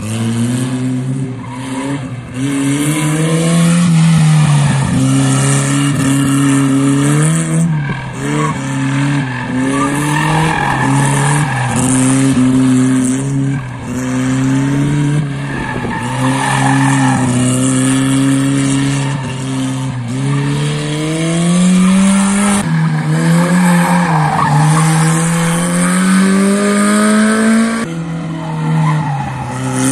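Rear-mounted engine of a small Abarth-liveried 600 race car, revved hard, its pitch climbing and dropping back again and again as the driver works through the gears. Bursts of tyre squeal come in as it slides through tight turns.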